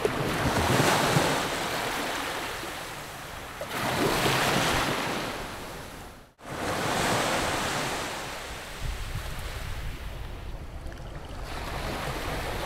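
Sea waves breaking and washing up a beach in repeated swelling surges, with wind buffeting the microphone. The sound cuts off abruptly about halfway through and picks straight up again.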